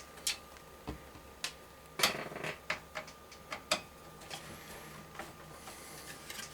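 Irregular sharp clicks and taps of a PC case fan and case parts being handled, denser in the first few seconds, then fewer and fainter.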